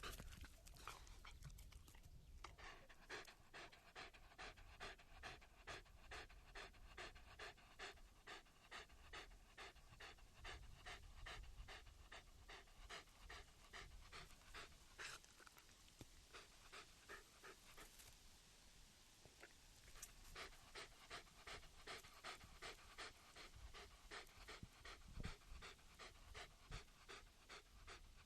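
A dog panting rapidly and evenly, about three to four quick breaths a second, easing into a smoother breathy stretch about two-thirds of the way through before the quick rhythm resumes.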